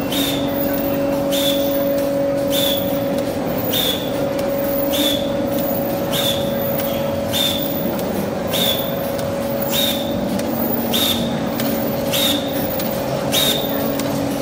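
Punching and stamping head of a TZC HL1000KT machine cycling steadily, with a sharp clack about every 1.2 seconds. Each clack is followed by a brief high squeal, over a constant machine hum.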